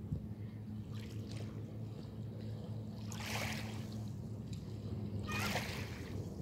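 Steady low drone of a lake passenger ship's engine across the water, with small waves washing over a pebble shore twice, a couple of seconds apart.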